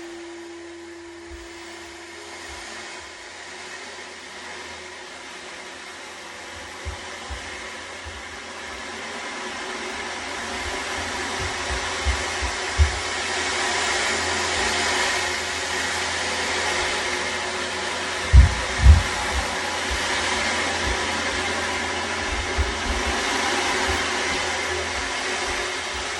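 Ocean drum: beads rolling across the drumhead in a steady rushing hiss like surf, growing from about eight seconds in and rising and falling in swells, while a singing bowl's tone dies away in the first couple of seconds. Dull low thumps of footsteps from the floor above come at intervals, the two loudest close together about eighteen seconds in.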